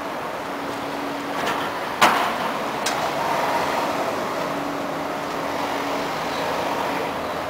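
City street traffic noise, steady, with a sharp bang about two seconds in and a smaller click just under a second later.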